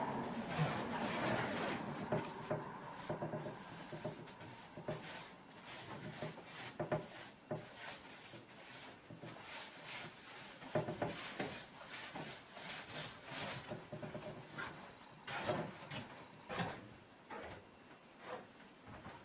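Irregular scraping and rubbing on wood by hand, with scattered light knocks.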